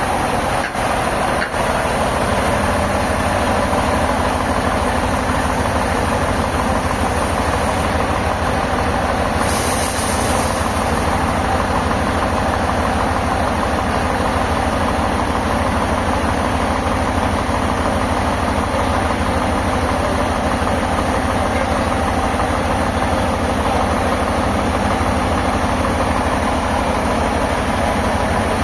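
Heavy engine-driven sawmill machinery running steadily with a constant low hum. A short hiss cuts in about ten seconds in.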